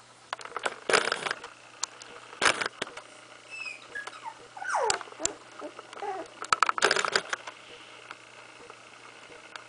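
A 16-day-old puppy whimpering: several short falling squeaks in the middle, with short noisy bursts about a second in, at two and a half seconds and around seven seconds.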